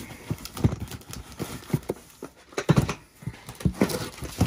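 Small, heavy cardboard boxes of parts being shifted and lifted out of a larger carton, giving a series of irregular knocks and thumps with cardboard scraping.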